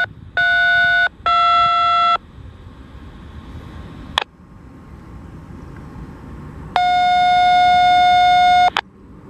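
Touch-tone (DTMF) tones over a railroad radio: three short beeps dialing '3-3-2', the tone code that calls up the dispatcher. A radio click follows, then one steady tone lasting about two seconds.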